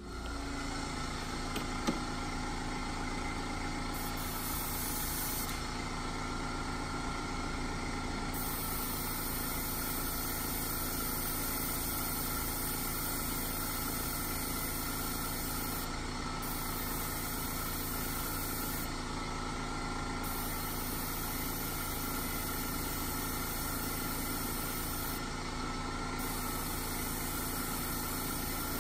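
Small airbrush compressor running with a steady hum, while a gravity-feed airbrush sprays paint in hisses that start and stop several times. A single click about two seconds in.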